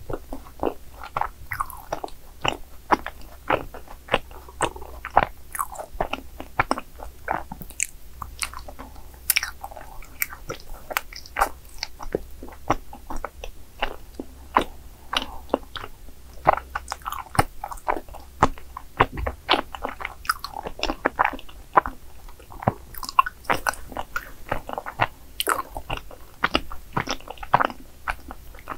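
Close-miked chewing of chewy cream-filled rice cake, a continuous run of many short, irregular mouth clicks and smacks.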